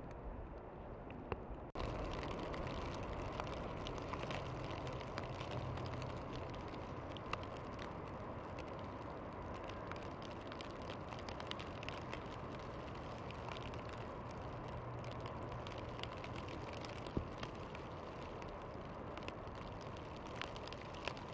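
Snowstorm ambience in a conifer forest: a steady hiss with many light ticks of falling snow landing on branches, over a faint low rumble. The sound jumps louder and brighter about two seconds in.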